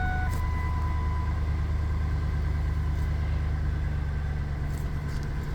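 2003 Ford F-150's engine idling steadily, just started once the immobiliser code was entered. A short electronic tone sounds over it near the start.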